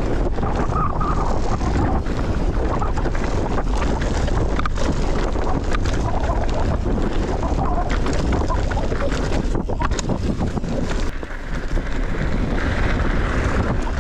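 Wind buffeting the microphone over the rumble and clatter of a bike rolling fast over a rough dirt trail, with many short rattles and knocks.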